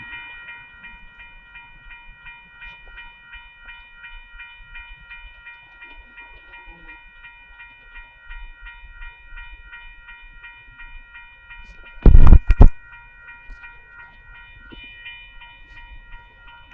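Railroad grade-crossing warning bell ringing in rapid, even strokes, switched on suddenly as the crossing signals activate for an approaching train. About twelve seconds in, a brief loud low thump cuts through.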